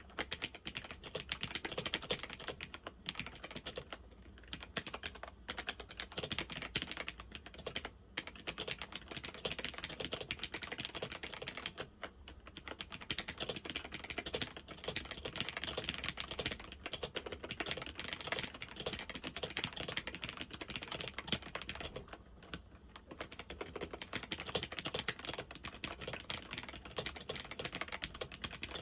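Typing on a Zenith ZFL-181-93 laptop keyboard with Alps SKFL switches: a fast, continuous stream of key clicks, broken by a few brief pauses.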